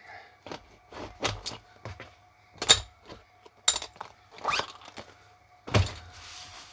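Sockets being pressed one at a time into a socket holder: a string of about ten separate, irregularly spaced clicks and knocks.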